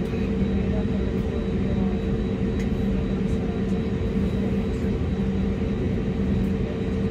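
Steady drone inside the cabin of an Airbus A320-251N with its CFM LEAP-1A engines running: an even rumble with a constant low hum, holding level without any rise in pitch or loudness.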